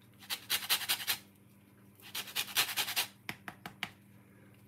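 A lemon being zested on a handheld metal grater: two runs of quick rasping strokes, the second starting about two seconds in, followed by a few light taps.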